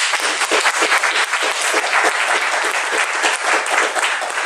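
Audience applauding: many pairs of hands clapping at once, dense and steady.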